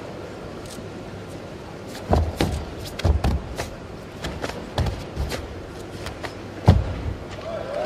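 Sharp snaps and thuds from three karateka performing the Shotokan kata Unsu in unison: karate gi snapping with each technique and bare feet stamping on the competition mat, about six times, the loudest near the end. A steady low murmur of a large arena crowd lies underneath.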